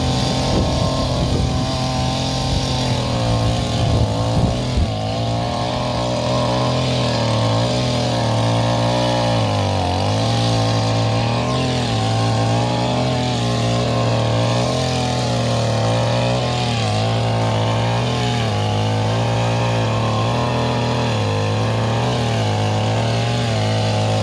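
Two-stroke chainsaw cutting into a tree trunk, its engine running hard with the pitch sagging and recovering every few seconds as the chain bites into the wood.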